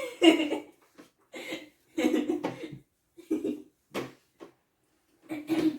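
Short bursts of people's voices at close range, about six in a row with gaps between them, without clear words.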